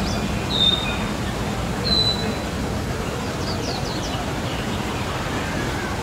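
Common hill myna calling: two short, clear, slightly falling whistles, then a quick run of short downward-sweeping notes, over steady low-pitched background noise.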